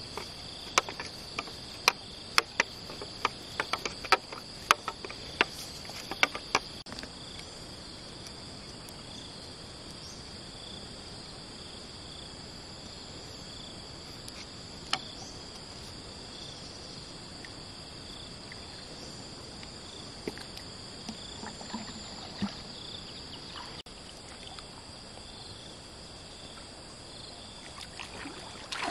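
Crickets and other insects shrilling steadily, with one chirp repeating at a regular beat. During the first seven seconds there is a run of sharp clicks and taps.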